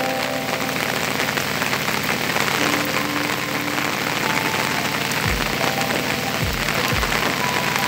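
Heavy rain falling steadily, a dense hiss of drops on the ground and water. A few faint steady tones run underneath, and several low thuds come in over the last two and a half seconds.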